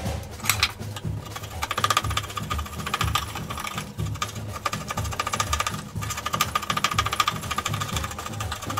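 A long flat file pushed across a wooden hatchet handle clamped in a vise, rasping steadily over a run of strokes as the handle is shaped to fit the head.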